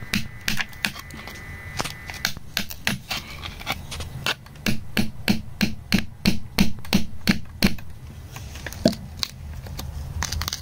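Metal pick tapping and scraping at a crust of white mineral matrix around a green crystal, in short scratchy strokes about three a second, thinning out after about eight seconds.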